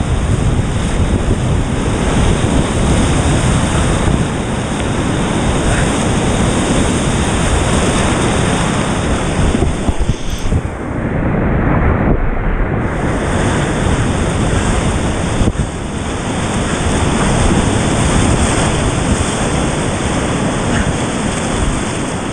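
Class IV whitewater rapid rushing and splashing around a kayak, heard from on the boat. The upper end of the sound dulls for a couple of seconds about halfway through.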